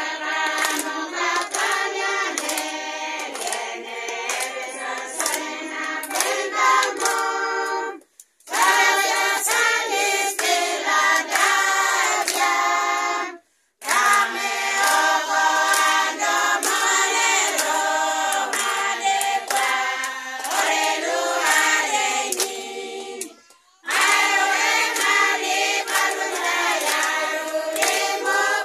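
A small group of women singing together a cappella while clapping their hands in time. The sound breaks off briefly three times.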